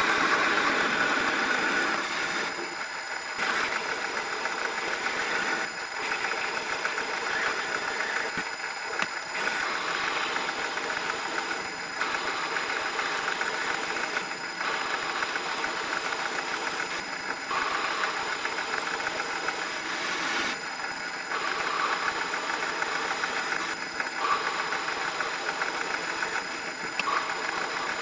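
Metal lathe running, its chuck spinning while a lathe tool turns down a thin high-tensile steel rod for a miniature engine valve stem. A steady machine whine with a cutting hiss that eases off briefly every few seconds.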